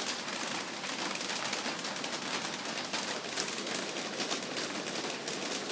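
Heavy rain falling, a steady hiss dense with the patter of many small drops.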